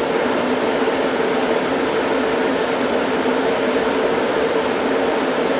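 Sun Enterprise 10000 server's cooling fans running, powered up: a loud, steady rush of air with a faint steady hum underneath.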